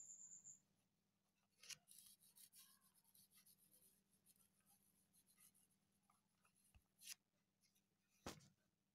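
Faint scratching of a stylus handwriting on a screen, in short strokes, with two sharper taps near the end.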